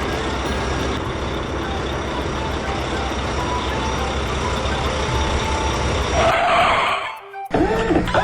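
Cartoon sound effect of a truck engine running steadily, with a brief louder noisy surge about six seconds in.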